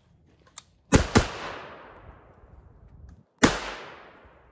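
Three shots from an AR-15-style rifle: a quick pair about a quarter second apart, then a single shot about two seconds later. Each shot leaves a long fading echo.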